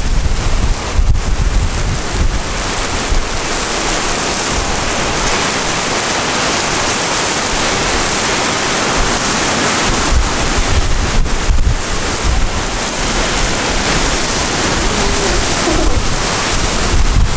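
Heavy thunderstorm downpour with strong wind gusts buffeting the microphone as a loud low rumble. The gusts ease for a few seconds and pick up again about ten seconds in.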